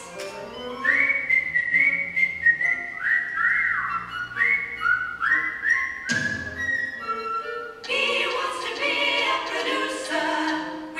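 Instrumental break of a Broadway show-tune backing track: a high melody line of short notes that bend up and down, a quick downward swoop about six seconds in, then the full band entering about two seconds later.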